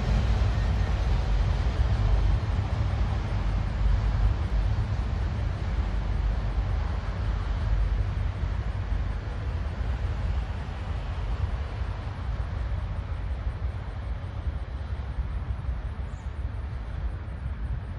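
Freight train of autorack cars rolling away on the rails, a steady low rumble that slowly fades as the end of the train recedes.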